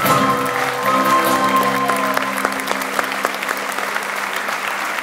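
A live folk band's final held notes fade out about two or three seconds in while an audience applauds, and the clapping carries on alone.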